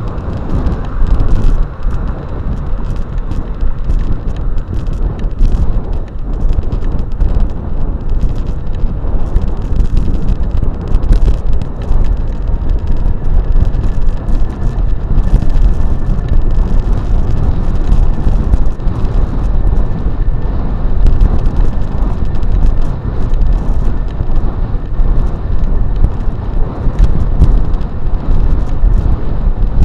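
Electric bike riding over a dirt trail: a loud, continuous low rumble of wind and ride noise on the microphone, with frequent clicks and knocks as the bike rattles over bumps.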